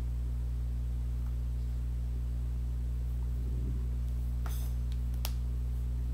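Steady low electrical hum in the recording, with two faint clicks about a second apart near the end.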